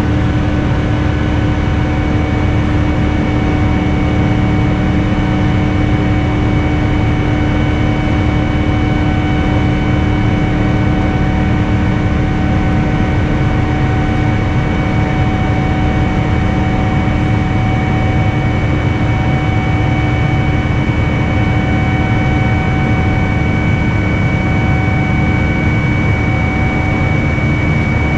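Boeing 787-10's Rolls-Royce Trent 1000 engines and airflow heard from inside the cabin during the climb after takeoff: a loud, steady rush with several steady whining tones on top.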